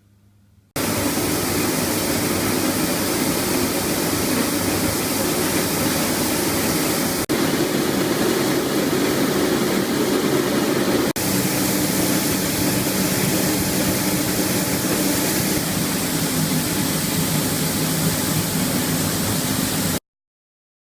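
Farm machinery running steadily: a loud, even mechanical noise with a low steady hum. The sound starts and stops abruptly, with two sharp cuts between joined clips, about a third of the way and halfway through.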